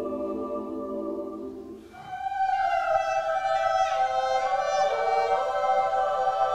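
Mixed choir and solo violin: a held choral chord fades out about two seconds in, then a higher sustained chord enters, with the violin playing over the singing voices.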